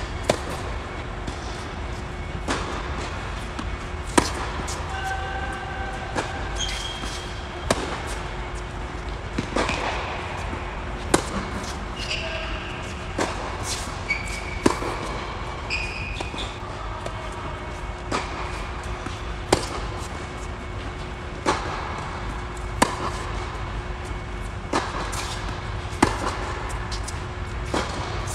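Tennis ball being struck by rackets and bouncing on an indoor hard court during a steady baseline rally: sharp pops every second or two, each ringing briefly in the large hall, over a steady low hum.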